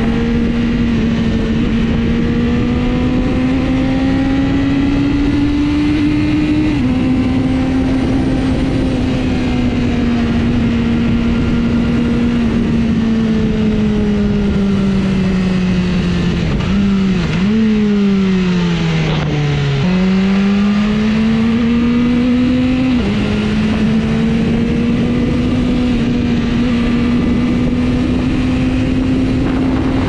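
BMW S1000RR's inline-four engine running under way, with steady road and wind noise. The engine note rises and drops back at upshifts, then falls steadily as the bike slows, with a short blip along the way. Near the two-thirds mark it picks up and climbs again as the bike accelerates.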